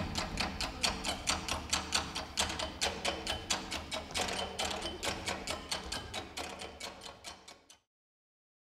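Soundtrack music ending on a fast, even run of light percussive ticks, about five a second, that fades away and stops about a second before the end.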